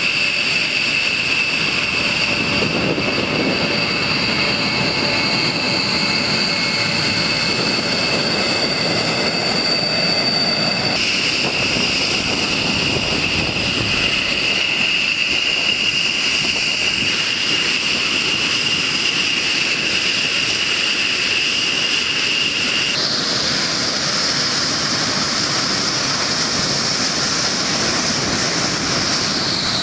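Jet engines of a B-1B Lancer, its four General Electric F101 turbofans, running on the flight line as the bomber taxis: a steady high whine over a broad rushing noise. The whine's pitch jumps abruptly three times and falls near the end.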